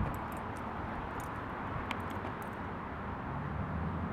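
Steady outdoor background noise with the low hum of a vehicle engine, and a few faint ticks.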